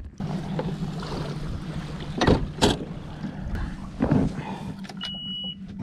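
Bass boat's outboard motor running steadily as the boat is driven across the lake, with a few sharp knocks and a short high electronic beep near the end.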